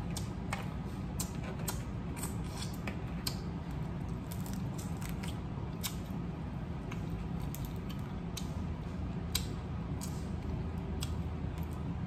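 Crab leg shells being cracked and pulled apart by hand, a string of sharp, irregular clicks and snaps, with eating sounds close to the microphone, over a steady low hum.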